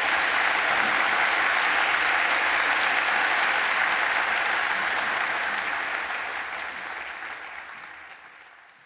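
Audience applauding, steady at first and then fading away over the last few seconds.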